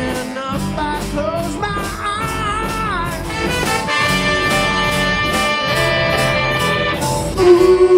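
A rock-soul band playing live: drums keep a steady beat under electric guitar, and about halfway through the horn section of saxophones and trumpet holds a long sustained chord.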